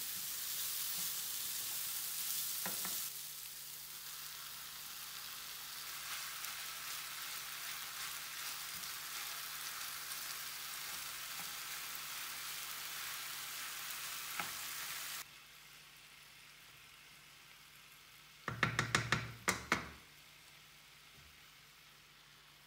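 Diced courgettes and onions frying in olive oil in a frying pan, with minced beef pressed into them, stirred with a wooden spatula. The sizzle drops off sharply about fifteen seconds in, and a quick run of about seven sharp knocks follows a few seconds later.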